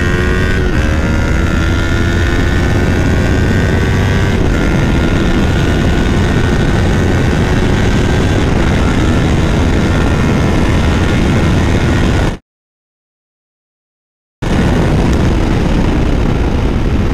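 Yamaha R3's parallel-twin engine through a Leo Vince full-system exhaust, pulling hard with its pitch climbing and dropping at two upshifts in the first few seconds, then cruising at a steady pitch under heavy wind rumble. The sound cuts out completely for about two seconds past the middle, then the engine and wind return.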